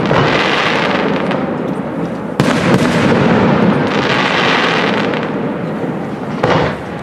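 Aerial firework shells bursting overhead, three sharp bangs (near the start, a little over two seconds in, and near the end), each followed by a dense crackle of the bursting stars.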